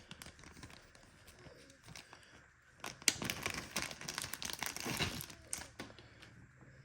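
Something crinkling and rustling as it is handled, with many small clicks, loudest between about three and five seconds in.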